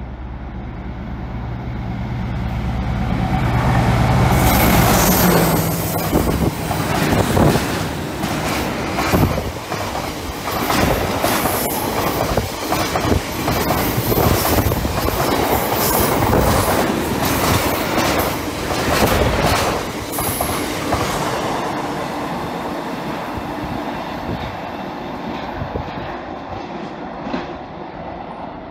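Diesel freight locomotive approaching and passing with its engine running, loudest about five seconds in, followed by a long train of tank wagons rolling by with a rapid clickety-clack of wheels over rail joints. The clatter fades over the last several seconds as the train draws away.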